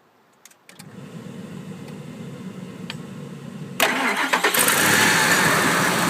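A few clicks, then a low hum, then the Ford 5.4L Triton V8 starts about four seconds in and runs steadily. The new PCV valve has cured its whine, and the engine is called "nice and quiet".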